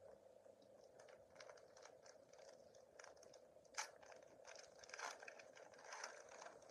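Faint crinkling and rustling of a foil Pokémon booster pack wrapper being handled, a few soft crackles with the loudest about four and five seconds in, over a faint steady hum.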